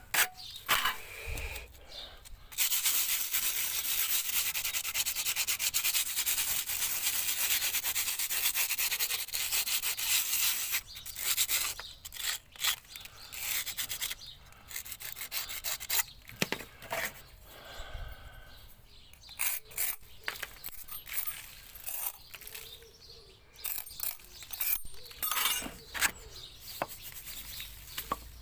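Hand rubbing and scraping over a freshly patched brick face to smooth it to the texture of the surrounding brickwork. A steady rasping hiss runs for several seconds a few seconds in, then gives way to shorter, irregular strokes with pauses between them.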